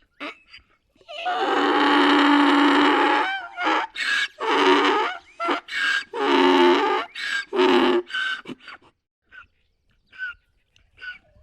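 Donkey braying: one long loud drawn-out call starting about a second in, followed by a run of shorter rhythmic calls that die away about nine seconds in.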